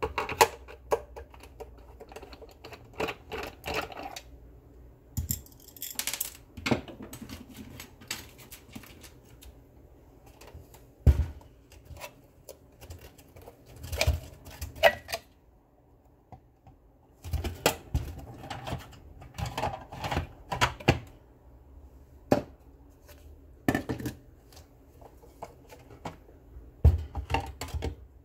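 Irregular clicks, taps and knocks of a Monster Blaster Black speaker's plastic end cap and housing as they are pried with a screwdriver and handled during disassembly, with a few louder knocks among them.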